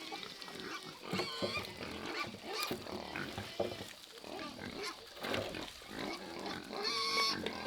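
Farm livestock calling: a run of short, irregular grunts and squeals, with a louder, higher squeal near the end.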